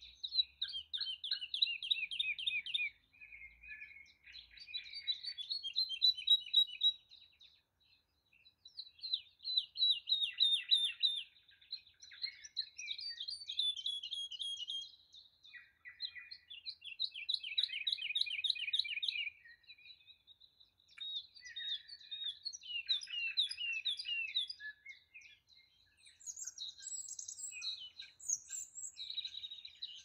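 Garden songbirds singing: repeated phrases of fast trilled notes, each a few seconds long with short pauses between, with higher notes near the end.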